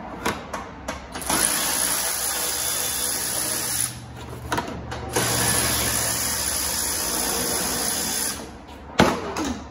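Milwaukee cordless 3/8-inch electric ratchet running in two steady bursts of about three seconds each, backing out two 10 mm bolts; the first starts about a second in and the second after a short pause. A single sharp click near the end.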